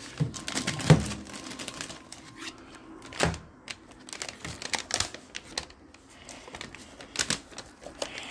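Kitchen handling noise as a paper microwave popcorn bag is put into a microwave: the bag crinkles and rustles, with a loud thump about a second in and scattered sharp clicks and taps after it.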